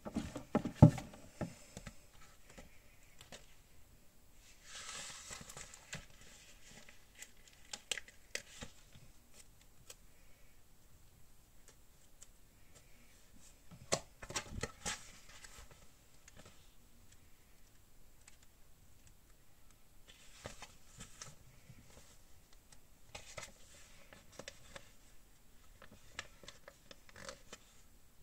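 Paper and sticker sheets being handled on a desk: rustling, crinkling and sliding, with a few sharp knocks. The loudest knock is about a second in, and there is another cluster around halfway.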